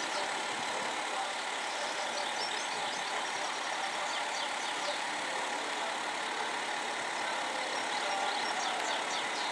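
Steady outdoor background noise of distant vehicles, with faint short high chirps here and there.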